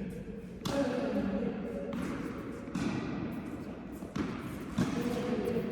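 Tennis balls knocking off racket strings and bouncing on an indoor court, about five sharp hits with a hall echo after each. Faint voices murmur underneath.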